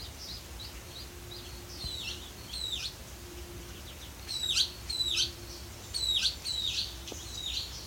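Muscovy ducklings peeping: a steady string of high, short peeps that slide downward in pitch, coming louder and closer together in the second half.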